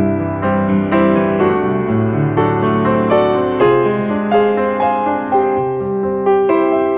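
Background piano music, a string of single notes and chords.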